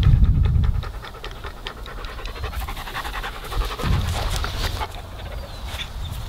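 Blue Weimaraner panting in quick, rhythmic breaths close to the microphone. A low rumble sits under it in the first second and again about four seconds in.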